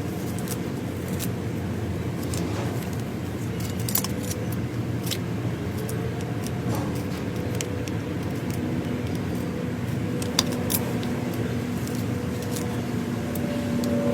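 Scattered light clicks and clinks of vacuum cleaner parts being handled during cleaning, over a steady low hum.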